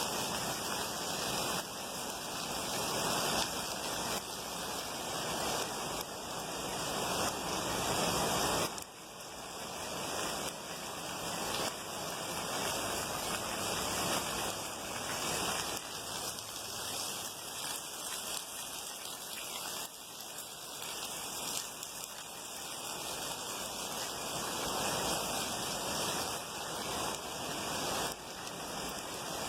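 Heavy rain pouring down as a dense, steady hiss that swells and eases every few seconds, dipping suddenly about nine seconds in before building again.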